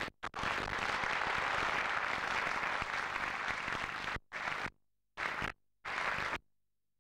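Theatre audience applauding. The applause runs steadily for about four seconds, then cuts out abruptly and comes back in three short stretches before stopping.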